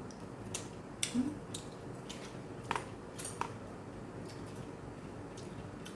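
Scattered light clicks and taps of eating utensils against dishes and food containers during a meal, about a dozen short, separate ticks.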